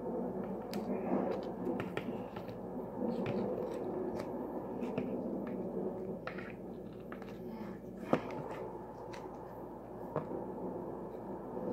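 A plastic action figure being handled and turned in the hands: scattered small clicks and taps of plastic, over a steady low hum.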